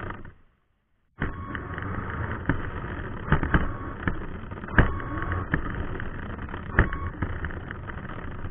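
Xinlehong 9125 RC truck's electric motor and drivetrain running as it drives over rough ground, with several sharp knocks from bumps. The sound drops out completely for about a second near the start, then resumes.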